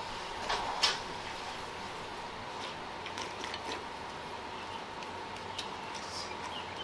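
A few light clicks of eating utensils against a bowl, the sharpest about a second in, over a steady background hiss.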